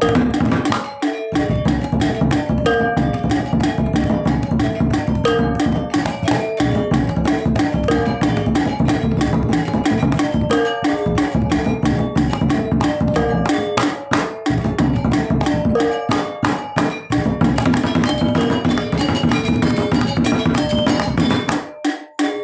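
Balinese gamelan playing a fast, busy piece for topeng dance: drums and metal-keyed percussion strike dense, rapid notes. The music thins briefly about a second in and again near the end.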